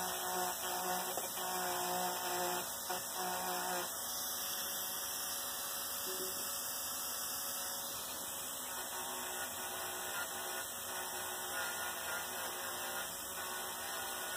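Steady electrical hum and hiss, with a faint steady tone for the first few seconds and a few light clicks from small hand tools such as pliers being handled.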